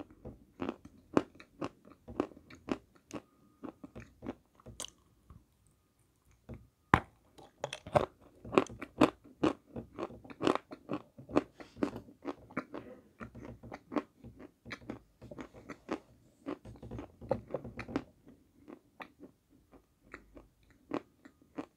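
Close-up crunching and chewing of white Malomikhailovsky edible chalk: a dense run of dry, crisp crunches as the pieces are bitten and ground between the teeth, with a short pause about six seconds in.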